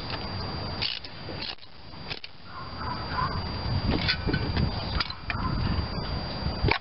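Hand work at a car engine's spark plugs: a few sharp clicks and handling noises as a spark plug wire boot and plug are worked by hand, over steady low background noise.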